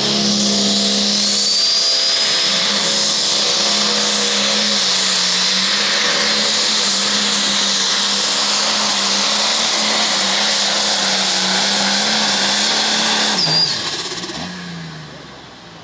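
A Case IH MX275 limited pro stock pulling tractor's turbocharged diesel running at full power under heavy load as it drags the pulling sled, with a high turbo whine over a steady engine note. Near the end the engine is throttled back and the sound falls away.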